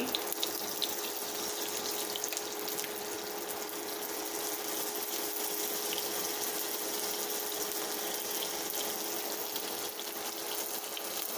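Marinated chicken breast slices frying in hot oil in a nonstick pan: a steady sizzle with scattered small crackles.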